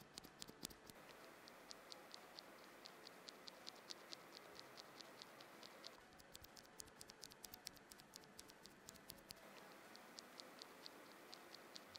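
Faint, quick clicking of a Cherry MX Black mechanical keyboard switch pressed over and over by hand, first in stock form, a few strokes a second. After a short pause near the end, a switch whose slider wings have been ground down to reduce its scratchiness is pressed the same way.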